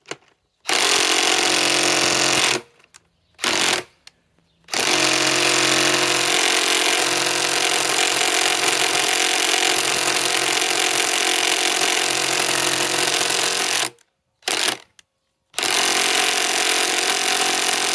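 DeWalt DCF891 mid-torque cordless impact wrench hammering on a stuck, frozen-in lag screw, in trigger bursts: a run of about two seconds, a short blip, a long run of about nine seconds, another blip, then a long run to the end. The lag does not break loose under the hammering.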